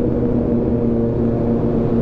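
Kawasaki motorcycle engine running at steady revs, its engine note holding an even pitch.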